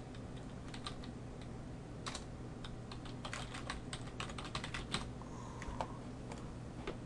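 Typing on a computer keyboard: a run of irregular, uneven keystrokes as a server name is typed in.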